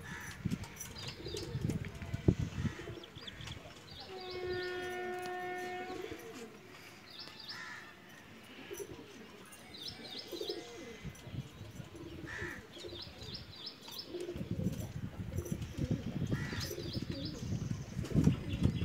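Domestic pigeons cooing in low, pulsing bouts as they feed, with short high chirps every few seconds. A steady held tone sounds for about two seconds, starting about four seconds in.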